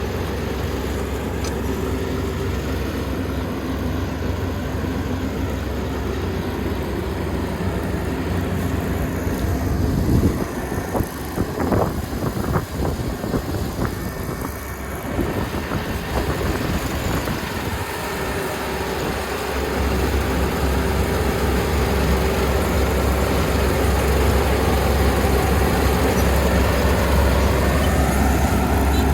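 Kubota ER470 combine harvester's diesel engine running steadily, with a stretch of uneven knocks and rattles in the middle, after which the low engine note becomes steadier and stronger.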